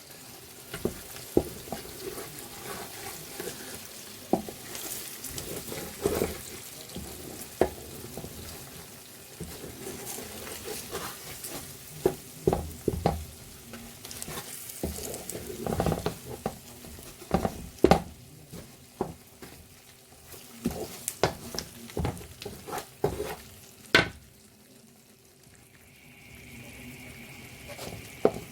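Ground egusi frying in palm oil in a pot, with a sizzle, while a spoon stirs it, scraping and knocking against the pot again and again.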